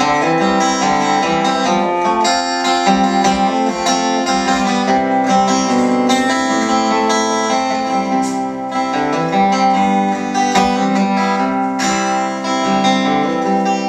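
Solo acoustic guitar playing an instrumental passage of chords between sung verses, with no voice.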